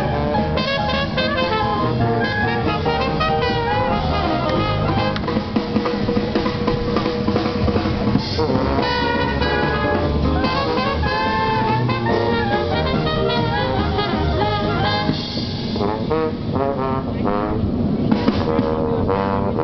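Brass band music, trumpets and trombones with drums, playing steadily through a loudspeaker.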